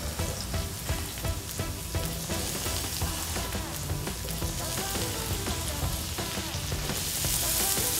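Shiitake mushrooms and vegetables sizzling in hot sesame oil in a stainless steel sauté pan, the hiss growing brighter near the end, under background music with a steady beat.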